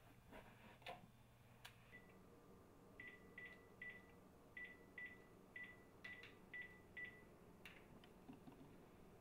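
Faint key-press beeps of a phone as a number is dialled: about ten short beeps, all at the same pitch, spread over some five seconds, after a few soft taps.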